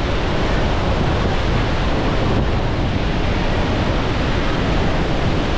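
Horseshoe Falls at close range: a loud, steady roar of falling water crashing into the gorge below.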